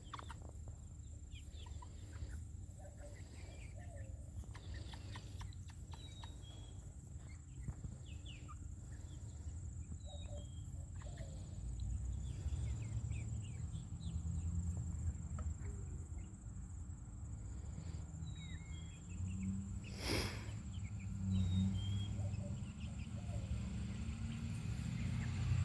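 Chickens settling on the roost for the night, making faint, scattered short peeps and chirps over a low rumble of handling noise, with one sharp click about twenty seconds in.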